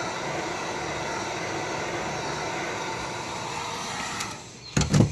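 Heat gun blowing a steady rush of hot air onto a tablet's glass to soften the adhesive, cut off about four seconds in, followed near the end by a couple of sharp knocks.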